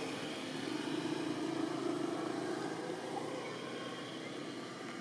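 Steady outdoor background noise of distant motor traffic, a low hum that eases off over the last couple of seconds.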